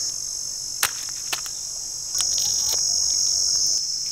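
Steady high-pitched insect chorus that swells louder for about a second and a half in the middle. A few light clicks sound over it.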